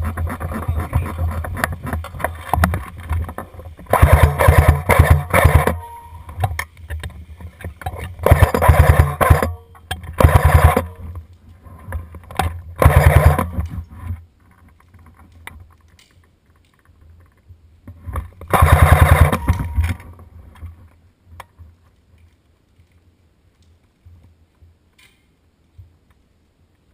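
An airsoft electric gun firing several full-auto bursts close to the microphone, each a rapid rattle lasting about half a second to two seconds, with a motor whir under the shots. After about twenty seconds the firing stops and only faint movement noise remains.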